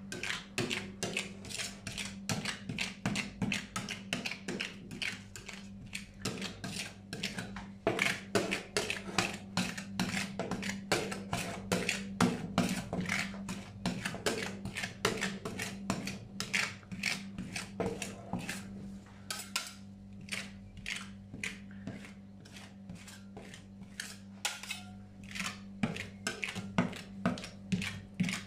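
Metal spatulas tapping and scraping rapidly on a frozen steel cold plate, chopping and spreading ice-cream mix into a thin sheet for rolled ice cream, with several sharp clicks a second. A steady low hum runs underneath.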